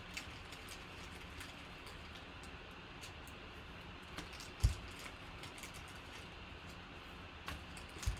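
Quiet handling of trading cards: faint scattered clicks and rustles, with two soft low thumps, one about halfway through and one near the end.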